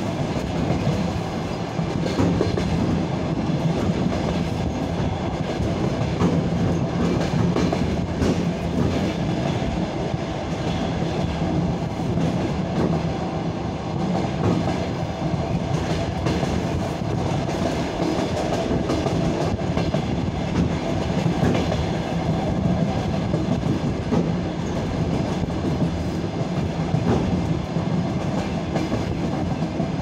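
Steady running noise of a train heard from inside the carriage: a continuous low rumble of wheels rolling on the rails, with scattered clicks over the rail joints.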